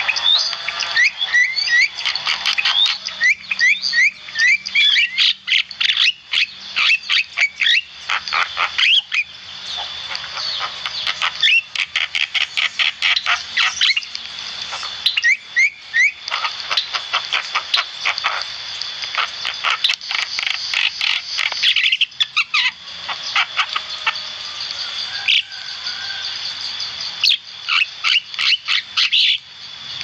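Javan myna singing vigorously: long runs of fast rattling chatter and clicks, mixed with short rising whistled notes and brief pauses.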